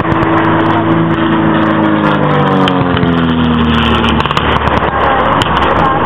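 A vehicle engine running, its pitch falling steadily over the first four seconds or so, then holding low and steady.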